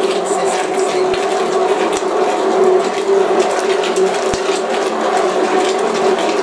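Handheld immersion blender running steadily with its blade down in a pot of thick broccoli soup, blitzing it to a purée: an even motor whine over the churning of the soup. It switches off abruptly at the end.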